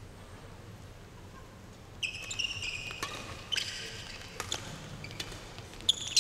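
Badminton doubles rally: low arena hum at first, then from about two seconds in shoes squeak on the court mat and rackets strike the shuttlecock in about five sharp hits, less than a second apart.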